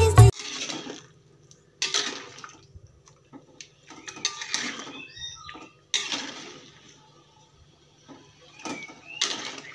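Water splashing and pouring in about five short bursts, each fading off, with a few light clicks between them.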